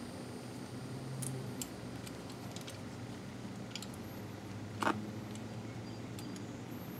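Light metallic clicks and ticks of rear drum-brake hardware on a 2001 Toyota Corolla being handled as a brake shoe and star adjuster are fitted by hand, with one sharper click about five seconds in, over a faint steady low hum.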